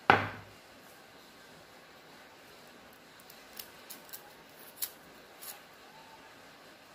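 Kitchen prep sounds: one sharp, ringing clink at the very start, then a few light clicks and snips over the next few seconds.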